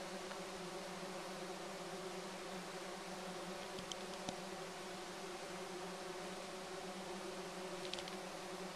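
Bees buzzing in a steady, even hum that holds without a break.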